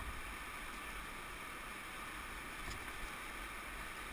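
Steady rush of fast-flowing floodwater in a creek, an even hiss, with one light knock about two and a half seconds in.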